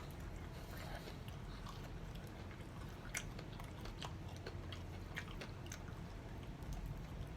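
A person eating chicken wings close to the microphone: soft biting and chewing with scattered small wet clicks and smacks, over a steady low hum.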